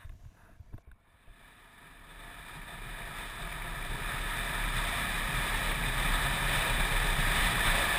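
Wind buffeting the helmet-camera microphone over the running Yamaha Ténéré motorcycle on a gravel road, swelling up from near quiet over the first few seconds and then holding steady.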